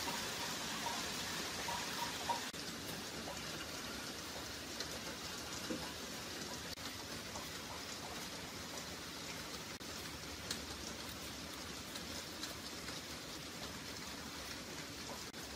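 Steady rain-like patter with faint scattered ticks, and a faint steady whistle for the first two seconds or so.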